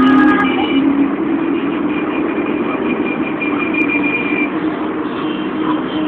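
Many motorcycles riding past in a dense stream, their engines running together steadily, with a steady high tone for a couple of seconds midway.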